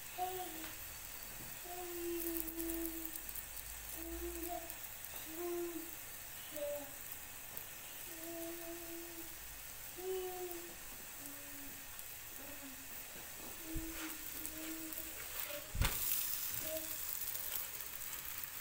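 Msemen frying in a lightly oiled non-stick pan with a faint, steady sizzle, while someone hums a slow tune in short held notes. Two sharp knocks near the end, the louder about three-quarters of the way through.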